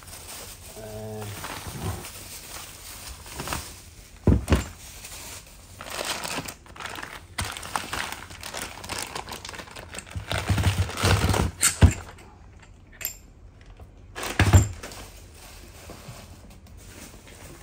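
Bubble wrap and a plastic bag crinkling and rustling as a steel hydraulic spreading wedge is unwrapped by hand, with a few knocks as the heavy tool is moved and set down on a wooden workbench.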